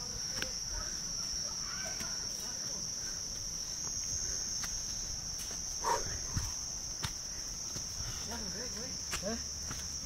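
Steady, unbroken high-pitched insect drone, with a few faint clicks and brief distant voices in the second half.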